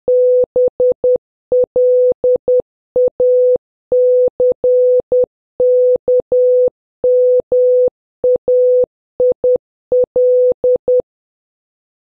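Morse code practice tone: a single steady beep keyed into short dots and long dashes, nine letter groups spelling out BLACKMAIL. The beeping stops about a second before the end.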